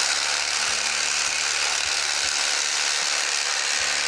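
Electric fillet knife switched on abruptly and running with a steady buzz as its blades cut the rib cage away from a perch fillet.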